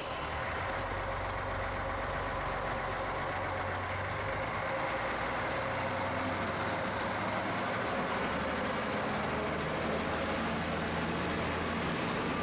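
Diesel railcar engine running steadily with a low hum, after a short air-brake hiss.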